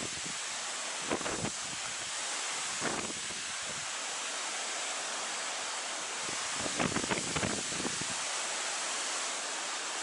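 Steady outdoor hiss with wind buffeting the microphone in gusts, about a second in, around three seconds, and most strongly around seven seconds.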